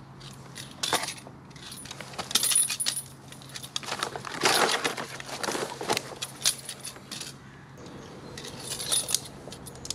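Metal hand tools clinking and scraping on bolts as the bolts of a scooter's variator (CVT) cover are loosened: a string of sharp metallic clinks, busiest about four to six seconds in.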